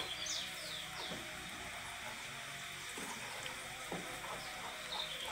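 Silicone spatula stirring liquid cream and condensed milk in a nonstick saucepan: faint soft sloshing with a few light knocks. A few faint high, falling chirps sound in the background.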